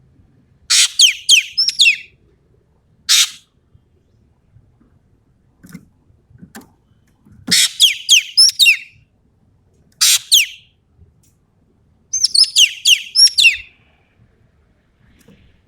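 Ekek keling (green magpie) singing in loud bursts of rapid, high, sharply falling whistled notes, about five bursts with pauses between them: the bird is in full song ('gacor').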